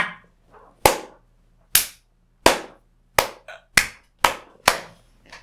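A series of about eight sharp single impacts, like claps or shots. They come closer together toward the end, from nearly a second apart to under half a second apart.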